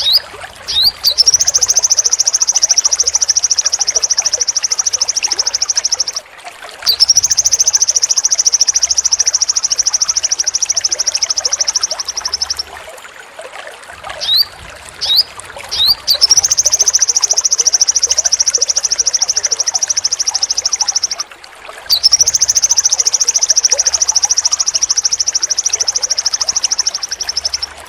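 Sogon songbird singing its long, sharp trill (besetan): four high, rapidly pulsing trills of about five seconds each, each led in by a few short upward-sweeping chirps.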